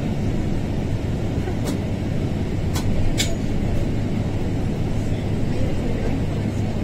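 Steady low rumble of a bus's engine and tyres heard from inside the cabin while it drives at speed, with a few short sharp clicks about two to three seconds in.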